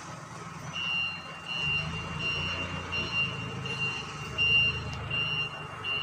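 Forklift reversing alarm beeping steadily, about eight short high beeps, one every three quarters of a second, as the forklift backs away with a pallet. An engine rumbles underneath and gets louder about a second and a half in.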